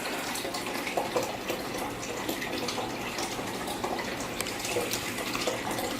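Kitchen tap running steadily into a sink while dishes are washed, with a few light clicks and clinks.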